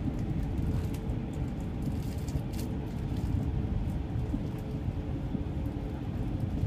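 Steady low rumble of a CRH high-speed train running at speed, heard from inside the passenger carriage.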